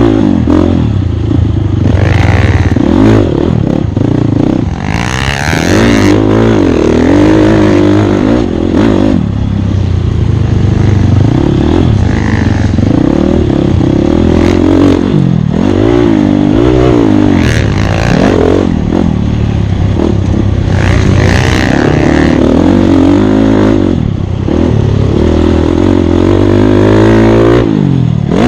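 Dirt bike engine revving hard and dropping back over and over as the throttle is opened and closed while racing an off-road course, with a few brief rushes of noise.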